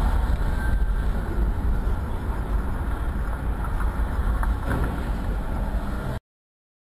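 Steady low rumble of a car driving, heard from a dashboard camera inside the cabin: road and engine noise with no voices, cutting off suddenly near the end.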